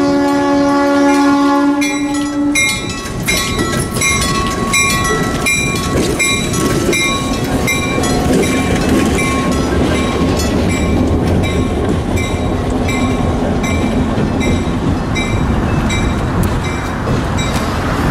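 Diesel locomotive horn sounding a long blast that stops about two and a half seconds in, then the locomotive's engine and wheels rumbling past close by. A grade-crossing bell rings steadily at about two strikes a second through nearly all of it.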